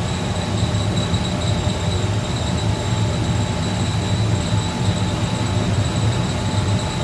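Running kitchen machinery: a steady, loud mechanical rush with a low hum and a faint high-pitched whine.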